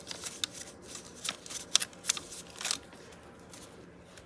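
Stack of paper tags in a handmade hinge journal tapped square and handled: a quick run of crisp papery rustles and taps over the first three seconds or so, then quieter.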